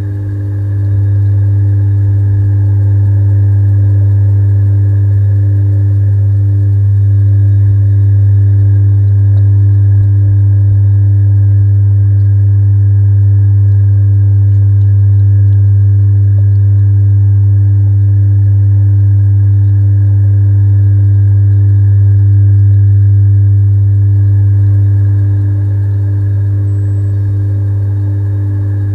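Steady, loud low hum of a running machine with a few fainter higher tones, unchanging throughout, picked up underwater in a fish pond.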